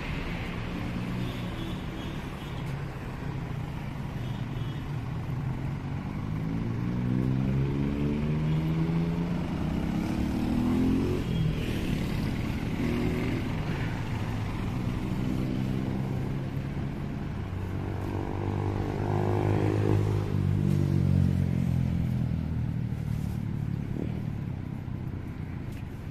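Street traffic passing close by: vehicle engines rise and fall in pitch as cars and motorcycles go by. One climbs steadily as it speeds up in the first half, and another passes loudest about twenty seconds in, over steady road noise.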